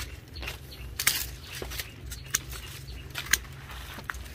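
Hand pruning shears snipping sugar-apple branches: several short, sharp clicks at uneven intervals over a faint steady low rumble.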